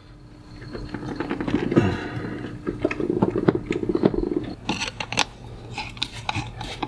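Hands working a plastic non-return valve into a water hose: a run of clicks and rubbing, with sharper ticks coming thicker in the second half.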